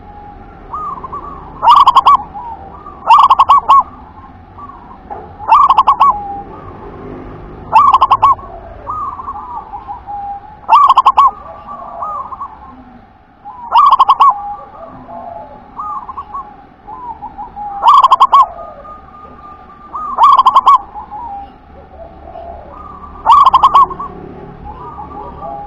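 Zebra dove (local perkutut) singing its repeated 'wer-ke-te-pek' coo phrase: about nine loud phrases spaced two to four seconds apart, with softer cooing between them.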